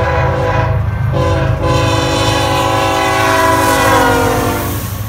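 Diesel locomotive air horn sounding a multi-note chord over a heavy low engine and rail rumble. It breaks off briefly about a second in, then sounds in one long blast whose pitch gradually falls as the train passes.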